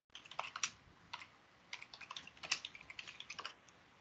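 Computer keyboard being typed on: faint, irregular key clicks in quick runs as a short command is entered, stopping near the end.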